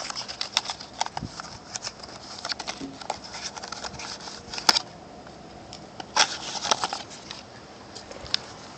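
Handling of a cardboard knife box, a paper insert and a plastic bag: a string of crackling rustles and sharp clicks, the loudest a little under five seconds in and again about six seconds in.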